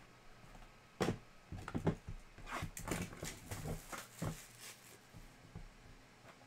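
Plastic shrink-wrap crinkling and tearing as it is pulled off a trading-card hobby box: a sharp snap about a second in, then a dense run of crackles that dies down after about four and a half seconds.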